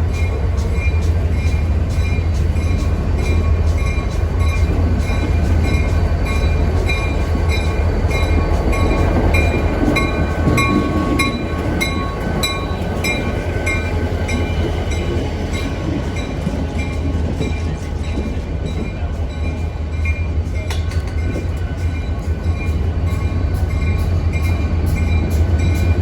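Diesel-hauled train running, a loud steady low rumble with frequent short clicks over the top.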